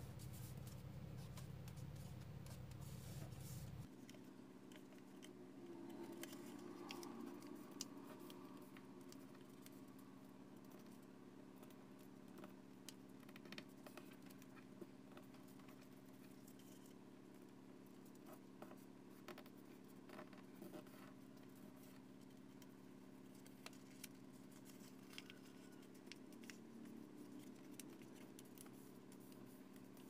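Faint crackling and rustling of origami paper being creased and pressed flat by fingers, with scattered small ticks. A low steady hum underneath drops away about four seconds in.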